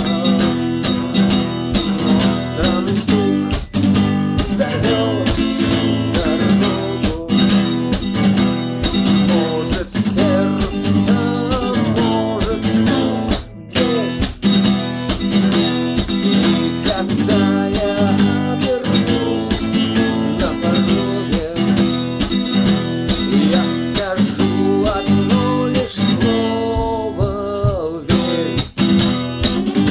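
Instrumental guitar music with no singing: a guitar plays a run of melodic notes, some bent in pitch, over a steady chordal accompaniment.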